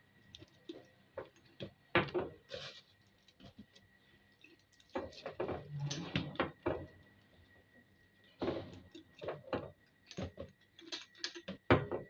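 Irregular knocks, clatters and rustles of objects being handled, in clusters a few seconds apart, over a faint steady high whine.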